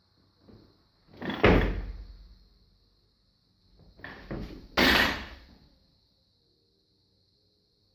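Loaded Olympic barbell with bumper plates during snatch reps: a loud crash about a second and a half in as the lifter catches the bar and his feet stamp on the platform, then a second loud crash near five seconds as the bar is dropped from overhead onto the floor. Lighter knocks come just before each crash.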